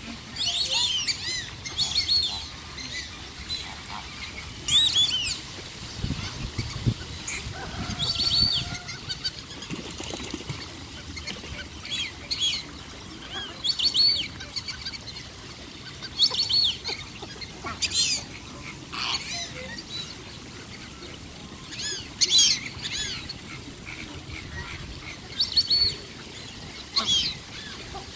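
Birds calling in bursts of several quick, high-pitched notes every second or two, over the steady splashing of a fountain.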